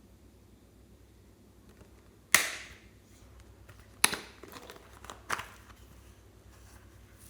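Slime being worked by hand, giving three sharp pops, the loudest first, with a few faint clicks and squishes between.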